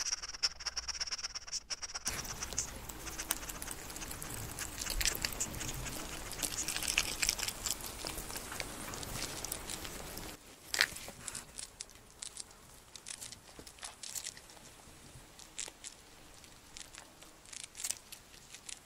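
A hedgehog foraging in grass: dense crackling, rustling and crunching as it noses through the grass and eats, with a high steady buzz in the first two seconds. About ten seconds in the sound cuts to quieter scattered clicks of a ground squirrel nibbling food.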